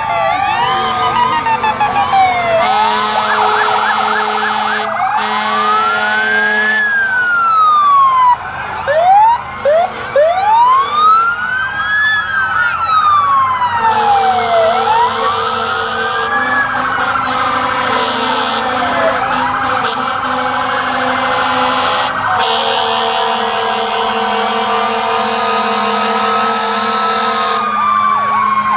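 Several fire truck and ambulance sirens wailing together, their pitches rising and falling out of step with one another. Three long, steady horn blasts cut in and stop sharply over them.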